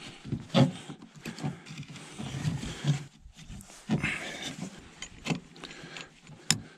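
Handling noise while building a stick trap: irregular light knocks and clicks of sticks and tools against a plastic truck-bed liner, with scraping and rustling of cord and a puffy jacket.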